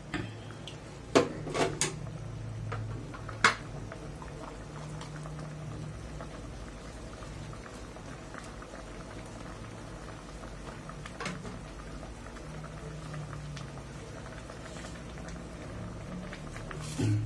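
Pot of oyster-mushroom broth boiling on the stove, a steady bubbling. A few sharp knocks of the spatula against the pot come in the first few seconds and once near the middle, and a louder knock comes near the end.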